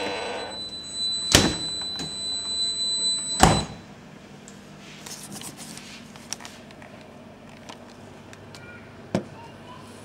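Two heavy thuds about two seconds apart as the doors of a Siemens side-by-side refrigerator are shut, then a low steady hiss with a few faint clicks and a sharper knock near the end.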